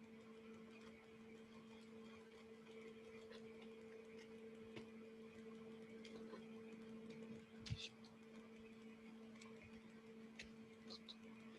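Near silence: room tone with a faint steady hum and a few faint clicks, the clearest about three quarters of the way through.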